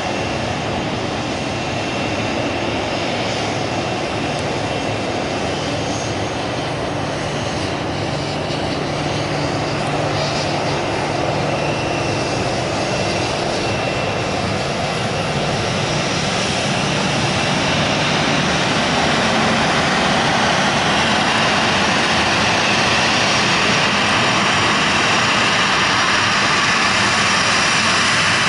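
A Boeing 737's twin CFM56 jet engines running at low taxi power: a steady rush with a faint whine. It grows louder past the middle as the airliner turns and comes head-on.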